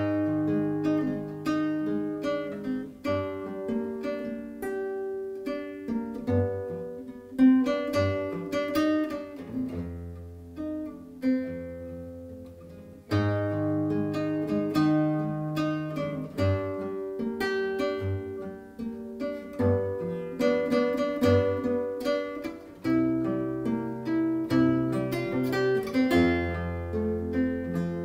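Solo classical guitar played fingerstyle: nylon strings plucked in chords and melody notes that ring and fade. The playing softens about ten seconds in, then a louder phrase begins a few seconds later.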